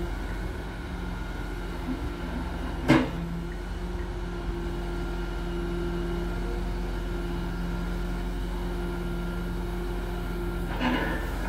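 Grapple truck's engine and hydraulic boom running with a steady drone as the knuckle-boom log grapple lifts cut tree trunks and swings them up over the dump body. A single sharp knock about three seconds in, and a softer one near the end.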